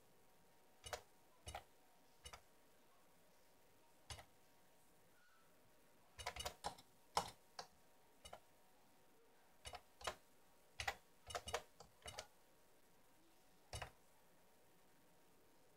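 Keystrokes on a retro home computer's keyboard: separate sharp clicks, single or in short irregular runs, as commands are typed in.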